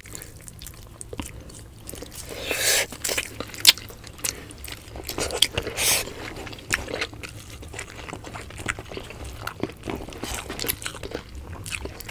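People chewing and biting food close to the microphone, with scattered mouth clicks and a few louder crunchy bites.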